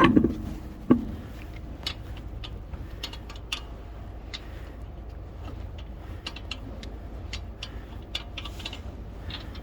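Scattered clicks and taps of tools and wheel parts being handled during a tyre change, with one louder knock about a second in, over a steady low hum.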